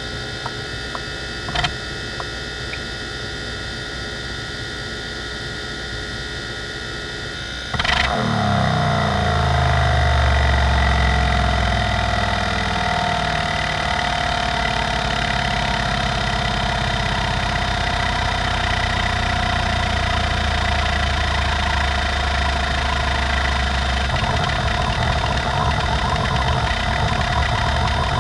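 1988 NEC D3122 20 MB hard drive running: spindle whine with a few light head ticks at first. About eight seconds in, a sharp click, then the sound gets louder and busier as the heads seek rapidly across the tracks during a seek-time benchmark. The low rumble changes character near the end as random seeks begin.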